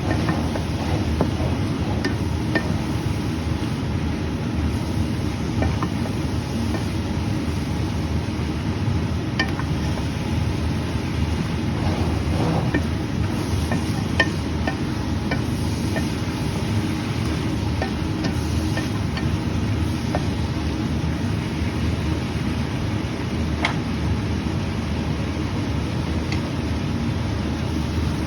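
Stir-frying beef and vegetables: a steady low roar under the cooking, with scattered sharp clicks of a utensil against the pan.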